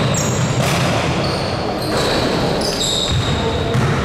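Basketball game play in a gym: a basketball bouncing on the court amid steady gym noise.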